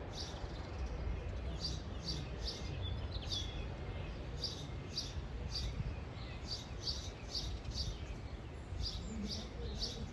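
A small songbird chirping repeatedly: short high chirps in groups of two or three, over a steady low rumble.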